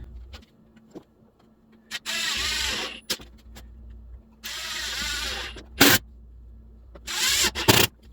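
Power drill driving 2-inch screws into the wooden hive cover: two runs of just under a second each, the motor's pitch wavering as each screw goes in. A few sharp knocks follow in the second half.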